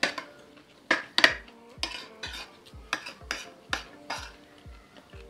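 Metal spoon or fork clinking and scraping against a plate of food, a run of sharp clinks about two a second that stops after about four seconds. Background music with a steady beat plays underneath.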